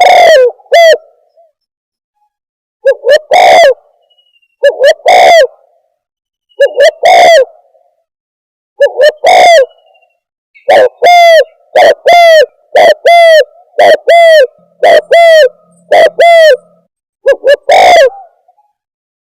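Spotted dove (tekukur) cooing as a loud, distorted lure recording. Short phrases of two or three coos come about every two seconds, then from about halfway a quicker run of single coos comes roughly every half second.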